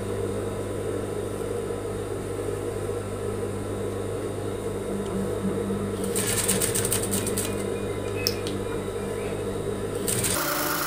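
Industrial flat-bed sewing machine running, stitching folded binding onto a collar edge: a steady motor hum, with a spell of rapid needle stitching about six seconds in and a single click shortly after. The hum changes tone near the end.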